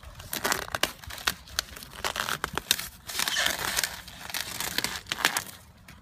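Peelable liquid vinyl (rubber spray coating) being pulled off a car bumper by hand: the rubbery film tearing away and crinkling in irregular crackles as the loose peeled sheet is bunched up.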